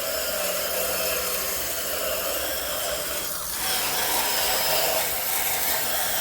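Garden hose spraying water onto a heat pump's outdoor condenser coil to wash it: a steady hiss that shifts briefly a little past halfway.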